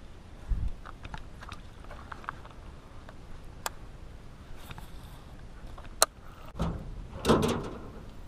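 Fishing gear being handled in a metal jon boat: a low thump, scattered sharp clicks, then the loudest part near the end, a clattering knock and scrape as a wooden paddle is lifted against the hull.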